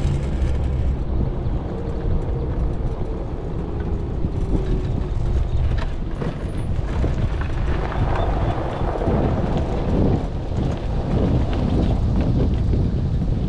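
Steady wind rumble on the microphone and road noise from riding along a paved road.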